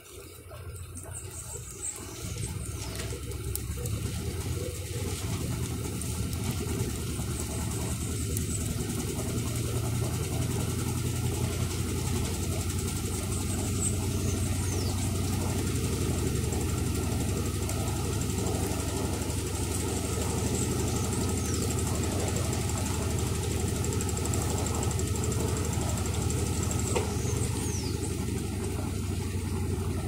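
Electrolux LT15F 15 kg top-loading washing machine spinning its basket of wet laundry. The motor hum builds over the first few seconds, then runs steady.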